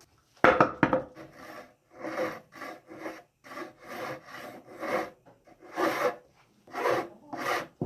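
Shinto SR-30 saw rasp being pushed and pulled across wood, about two rasping strokes a second. The first two strokes, about half a second in, are the loudest.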